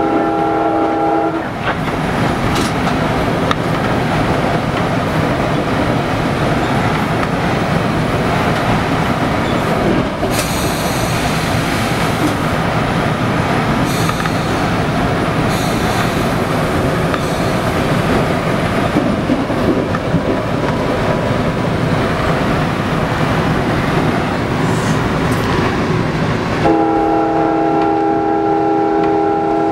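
Steady running rumble and rattle of a moving commuter train, heard from inside the cab. Its Nathan K5LA five-chime horn sounds a chord that ends about a second in, and sounds again for about three seconds near the end.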